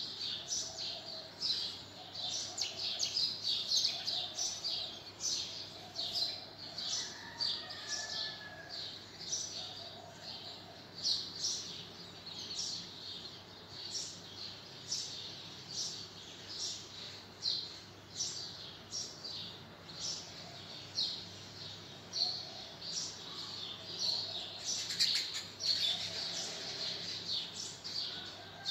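Pencil lead scratching on paper in short, quick strokes, about one or two a second, as fine lines are drawn.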